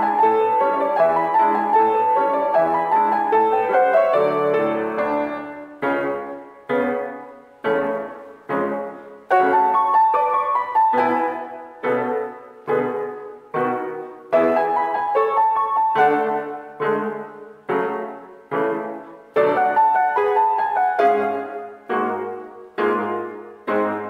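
Ritmüller grand piano played four hands, a polka. A dense run of notes gives way, about five seconds in, to separate chords struck on a steady beat, each ringing out and fading before the next.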